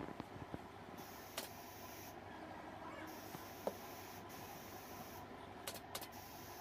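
Quiet handling of a quilted padded headboard cover being pulled and pressed onto a wooden bed frame: a few light clicks and taps, scattered and irregular, over a steady faint hiss.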